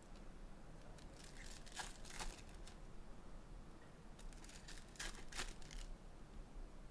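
Trading card pack wrappers and box packaging being torn open and crinkled by hand: faint irregular rustles and crackles, in clusters in the first two seconds and again about five seconds in.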